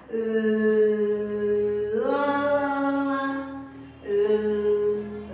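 A woman's voice singing long held 'lá' notes, the sound of the letter L: one note, a step up to a higher note about two seconds in, then back down to the first note after a short break about four seconds in.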